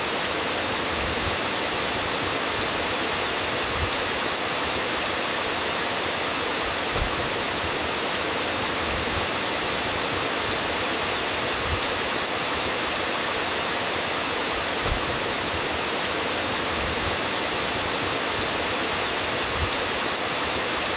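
Steady, dense rainfall hissing without a break, with a brief low thud every few seconds.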